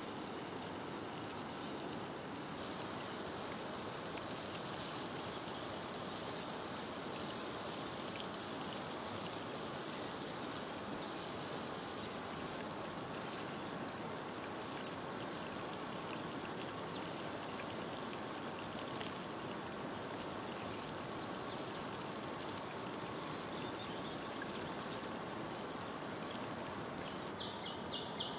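River water flowing steadily, a constant rushing. For several seconds in the first half a finer crackly hiss lies over it, and a rapid pulsing chirp starts near the end.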